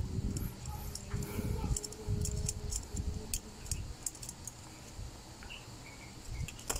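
Scattered sharp clicks and light metallic jingling of small tools and parts being handled on a workbench, over low rumbling handling noise.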